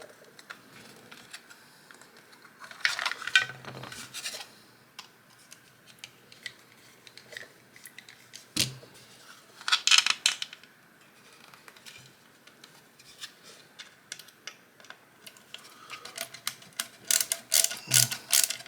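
Small metal screws and 3D-printed plastic parts being handled, giving scattered light clicks and short rattles, with a denser run of clicks near the end.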